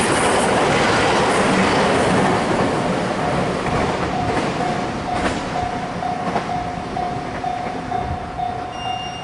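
A train running through a level crossing. Its wheels clack over the rail joints and the noise fades as it draws away. Under it, the crossing's electronic warning bell rings on one steady pitch at an even beat of about two strokes a second.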